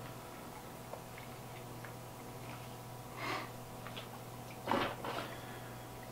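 Light handling noise: small clicks and two short rustles as a metal clamp mount is fitted to a handheld gimbal's grip, over a steady low hum.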